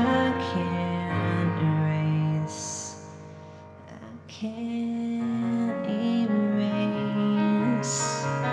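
Slow song on a digital piano with a woman singing held notes over it. The music drops quieter about three seconds in and builds again after four.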